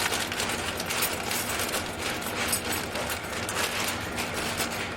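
Irregular metallic clicking and rattling of small brake parts and hand tools being handled.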